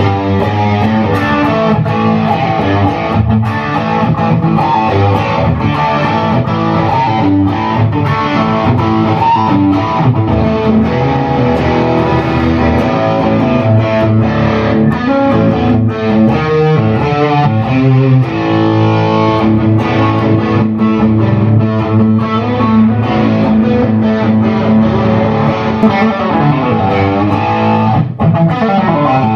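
1959 Gibson Les Paul Special double-cutaway electric guitar with P-90 pickups, played through an amplifier: a run of picked notes and strummed chords.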